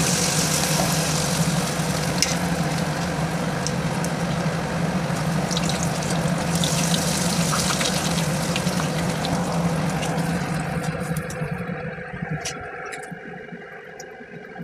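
Malpua batter deep-frying in hot oil in a steel kadai, sizzling loudly as a ladleful goes in. It swells again midway and dies down over the last few seconds, with a steady low hum underneath.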